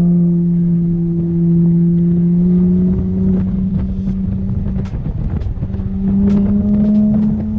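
Toyota GR Supra's turbocharged inline-six pulling under load on a racetrack, a steady engine note slowly rising in pitch. It thins out around the middle and then climbs again, with scattered sharp ticks over it.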